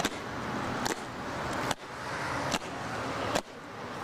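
Parade boots of East German guard soldiers striking stone paving together in a slow goose step, a sharp crack a little under once a second, five times, over a steady background hum.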